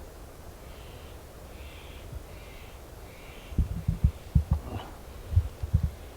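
Four faint calls in the first half, then a run of low, loud thumps and bumps over the second half, like handling knocks on a hand-held camera's microphone.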